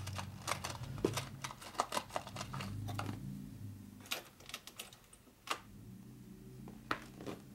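Light metallic clicks and clinks of a nut and washers being handled and fitted onto a cylinder-head stud. A quick run of clicks comes in the first three seconds, then a few single clicks further apart.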